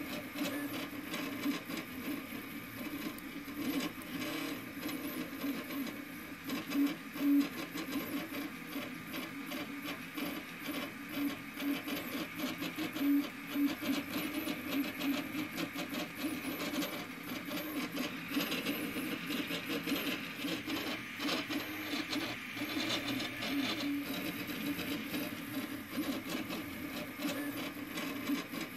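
Homemade FDM 3D printer running a print. Its stepper motors buzz and whine at constantly shifting pitches as the print head moves back and forth, with frequent small ticks.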